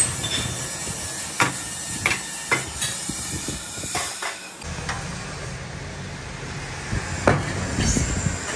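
Sharp metallic knocks and clanks of sheet-steel silencer tubes being handled, over a steady low workshop hum. There are several knocks in the first half and a couple more near the end.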